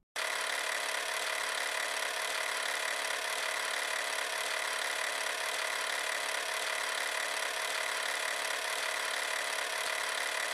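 A steady, harsh buzzing hiss at an even level that starts abruptly and cuts off abruptly.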